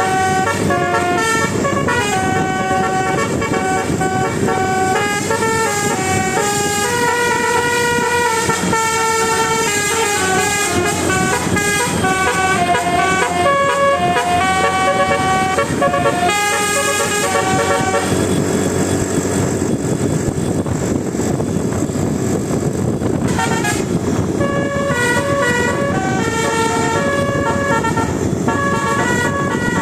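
Indonesian 'telolet basuri' bus horn, a multi-tone musical horn, playing a quick melody of short stepped notes. About two thirds of the way in it stops for several seconds, leaving a steady rumble, then starts the melody again.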